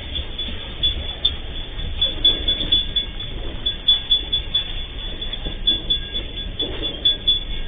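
Freight train wagons rolling past on the rails: a continuous low rumble with uneven knocks from the wheels.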